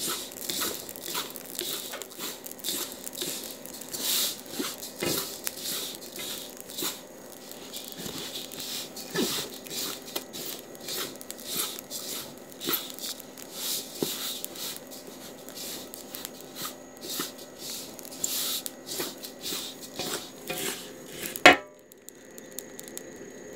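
Sesame seeds being stirred in a pan as they roast: a continuous dry rustling and swishing shot through with many small, irregular crackles. A loud sharp click comes shortly before the end, after which the rustling stops.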